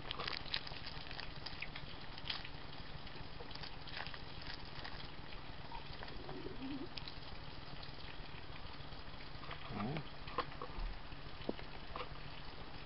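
Faint wet sucking and slurping of a mouthful of Atomic Fireball jawbreakers, with scattered small clicks over a steady background hiss. A brief muffled vocal sound comes about ten seconds in.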